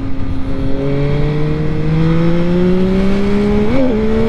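2022 Yamaha MT-09 SP's inline three-cylinder engine pulling hard, its note rising steadily as the bike accelerates, with a brief flick in pitch near the end. Wind rushes over the rider's microphone.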